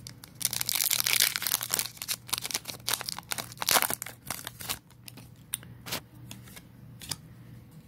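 A Pokémon booster pack's foil wrapper being torn open and crinkled in the hands as the cards are pulled out. The crinkling is densest over the first few seconds, then thins to a few light rustles and clicks.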